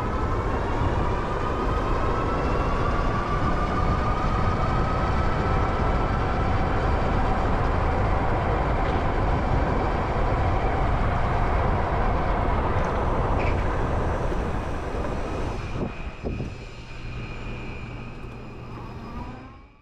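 Electric motorbike riding at speed: heavy wind rush on the camera microphone with a motor whine that rises slowly in pitch as the bike accelerates. About sixteen seconds in the wind drops and a quieter, steadier hum and high whine remain before the sound fades out.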